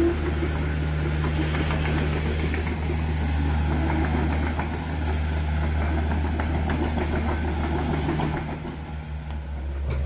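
Mini excavator's diesel engine running steadily at a low, even pitch, easing off slightly near the end.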